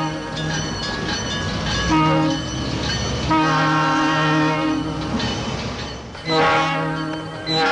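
Train horn sounding a series of blasts, a couple of short toots and then longer blasts, with breaks between them. A low rumble and rail clatter from the moving train lie under the first couple of seconds.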